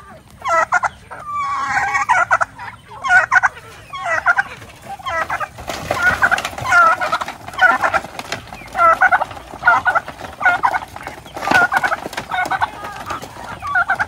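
A flock of chickens and turkeys calling at feeding time, with a turkey gobbling among clucking hens; the rattling calls come in quick bursts about once a second.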